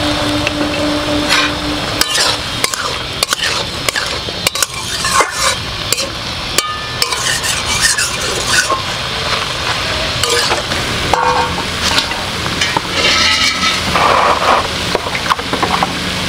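Metal spatula scraping and clinking against a metal kadai as greens and vegetables are stir-fried, many short strokes over a steady sizzle of the frying.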